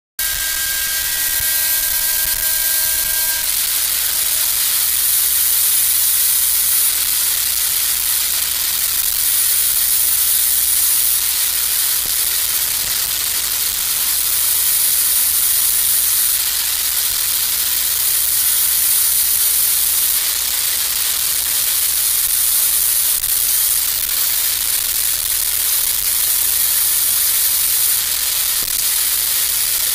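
Steady rushing hiss of water churning out at the base of a large concrete dam into the river below.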